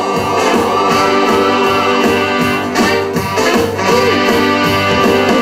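Instrumental break of a country-blues style song: band music with guitar and a steady beat, between sung verses.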